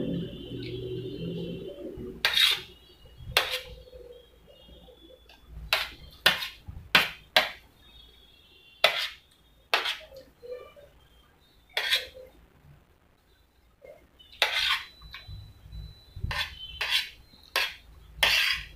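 Metal spoon clinking and scraping against a stainless steel plate while scooping fried rice, in sharp, separate clinks about once a second with short pauses between.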